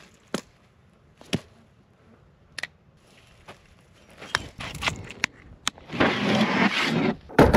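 A few sharp clacks as a hatchet is tossed and caught. Then a hard plastic tool case scrapes as it is slid out over a wooden drawer floor, ending in a loud thump.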